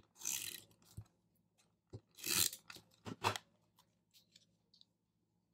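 Paper and sticker sheets being handled on a planner page: a few short paper rustles with light taps, dying away after about four seconds.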